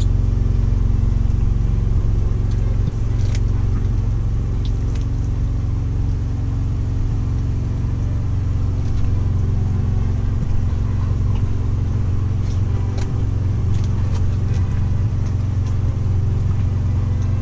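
Semi truck's diesel engine idling steadily, heard from inside the cab as a low, even hum. A few light clicks of a plastic fork in a foam takeout box.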